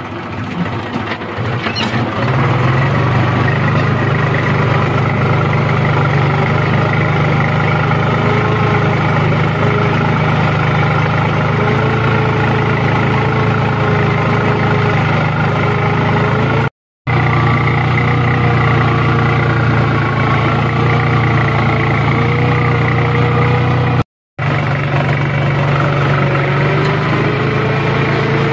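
Swaraj 735 FE tractor's three-cylinder diesel engine running steadily under load while pulling a reversible plough through the soil. The engine note picks up about two seconds in, and the sound cuts out briefly twice.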